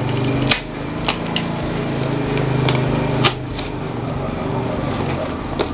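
A steady low mechanical hum, like a fan or air conditioner, with a thin high tone above it. Several sharp snips of a cutter cutting the plastic ties on a basket crate.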